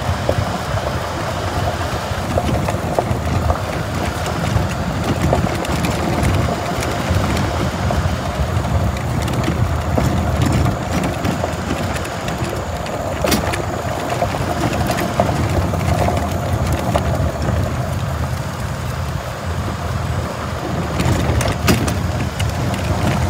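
Detroit Diesel 8V71 two-stroke V8 diesel of a Greyhound Scenicruiser bus running steadily as the bus rolls slowly along a gravel lane, with a few sharp clicks midway and near the end.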